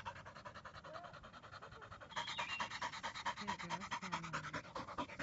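Yellow Labrador retriever panting rapidly with its tongue out, the quick even breaths growing louder about two seconds in.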